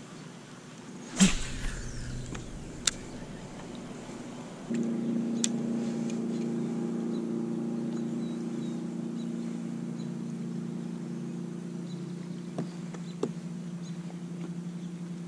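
A brief loud whoosh with a falling whine about a second in, then a steady low motor hum that starts suddenly about five seconds in and holds at an even pitch.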